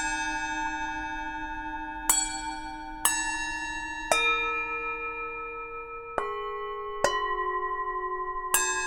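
Tibetan singing bowls struck with a mallet, six strikes at uneven intervals, each ringing on and overlapping the last in several different pitches.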